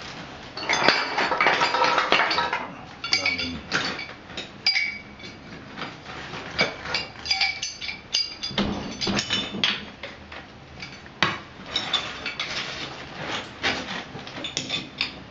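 Hand tools repeatedly clinking, tapping and scraping against metal while an old water pipe in a broken-open wall is worked on. The sound comes as irregular sharp knocks, with a denser scraping stretch about a second or two in.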